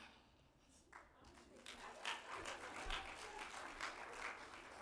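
Congregation applauding, starting about a second in and dying away near the end.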